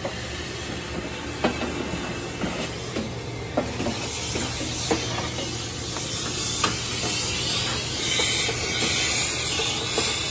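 Steady hiss over a low hum, with scattered light knocks and clicks; the hiss grows louder and brighter about eight seconds in.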